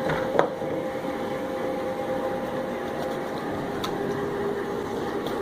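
A steady machine hum holding two even tones, with a faint tick about half a second in and another near four seconds.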